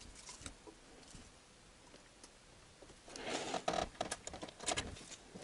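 Quiet handling noises of hands working at a car's transmission filter mount: a few faint clicks, then from about three seconds in a run of short scraping and rustling sounds.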